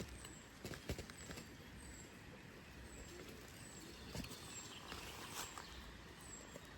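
Faint forest ambience with a small bird's short, high chirp repeating every half second or so, each chirp sliding downward, and a few soft clicks in the first second or so.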